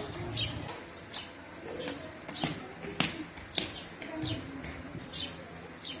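House sparrows chirping repeatedly in short, sharp notes, with three sharp clicks around the middle and a thin steady high tone from under a second in.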